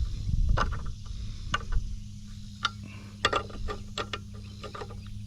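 Chainsaw chain being handled and looked over after it caught a loose bolt: irregular light metal clicks and rattles, over a steady low hum.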